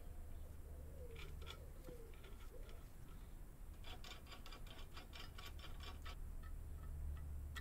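Faint metallic clicks and ticks from a valve spring compressor being fitted to a Kawasaki ZX7R cylinder head and its screw turned down onto the valve, in clusters about a second in and again from about four to six seconds. A low steady hum runs underneath.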